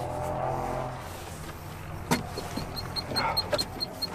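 Starter motor cranking the Peugeot 2.5-litre turbo diesel in an ARO 243 without it firing. The cranking dies away about a second in and is followed by a sharp click. A weak battery and a disconnected glow plug are why it does not start.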